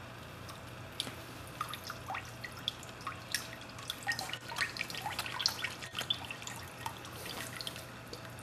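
Water wrung from a soaked oil-absorbent pad dripping and trickling back into a plastic tub of water. The scattered drips start about a second in, come thickest in the middle, and thin out near the end.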